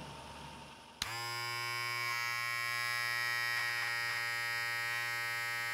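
Electric hair clippers buzzing with a steady, even hum that starts suddenly about a second in, after faint street noise.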